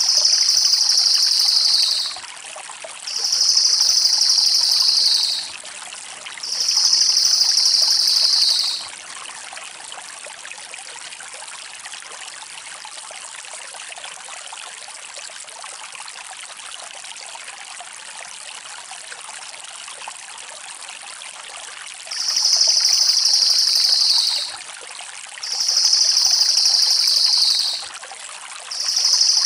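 Cililin (crested jay) giving its fast, rattling high trill in bursts of about two seconds. Three come in quick succession, then after a pause of about thirteen seconds three more follow near the end. A steady rushing hiss runs underneath.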